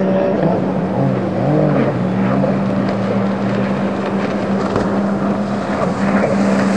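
Racing personal watercraft engines running hard: a steady high-revving drone, with the pitch of a second engine rising and falling as it passes and turns, over the hiss of water spray.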